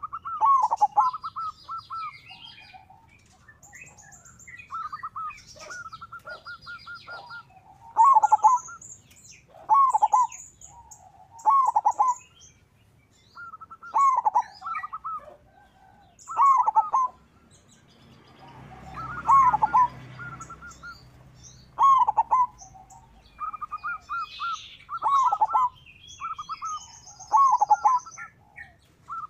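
Zebra dove (perkutut) singing, repeating its rapid stuttering coo phrase about every two seconds, with fainter high chirps of small birds between the phrases. A short rushing noise comes about two-thirds of the way in.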